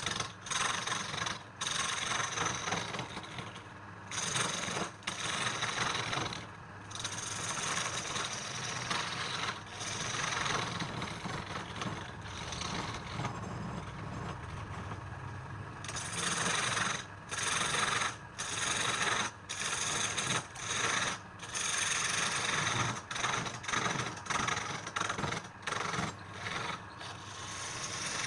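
Wood being worked on a running wood lathe: a rasping, scraping hiss of the spinning wood against the tool over the lathe's steady hum, in repeated passes broken by short pauses that come about once a second in the second half.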